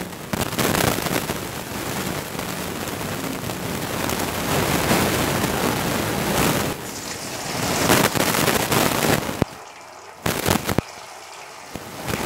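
Cumin seeds, a dried red chilli and a bay leaf sizzling and crackling in hot oil in a kadai, a tempering before the potatoes go in. The sizzle drops quieter about three-quarters of the way through, with a couple of sharp spatters.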